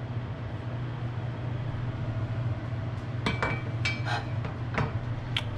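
Stove vent fan humming steadily. In the second half come about seven sharp clicks of a kitchen knife on a wooden cutting board as a potato cube is cut smaller.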